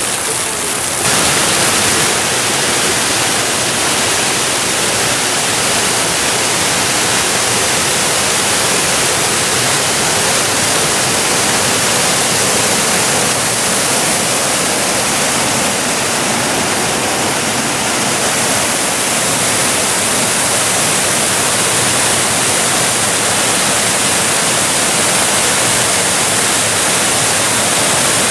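Fountain jets and cascades of falling water, a loud steady rushing hiss that steps up in level about a second in.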